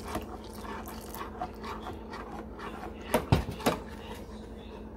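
Stainless-steel spoon stirring and scraping in a steel saucepan as custard mix is stirred into boiled milk, with a few sharp clinks against the pan about three seconds in.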